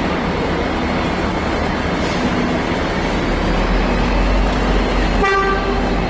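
V/Line N class diesel-electric locomotive running with its EMD 645 two-stroke V12 diesel, the low engine rumble growing heavier about three seconds in as it pulls away under power. A short, steady horn tone sounds about five seconds in.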